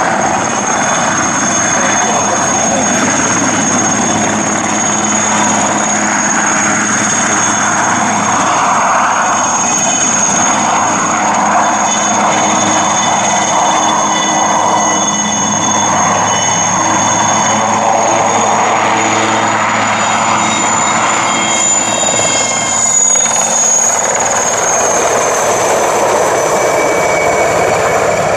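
IAR 330 Puma twin-turbine helicopter flying past: a steady high turbine whine over the broad rush of its rotor and engines, the whine shifting slightly in pitch about three-quarters of the way through.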